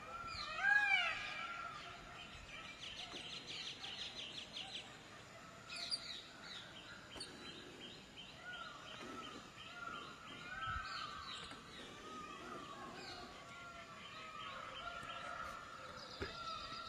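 Several birds calling outdoors: short rising-and-falling whistled notes repeat all through. There is a louder call about a second in, and a fast trill of repeated notes from about three to five seconds.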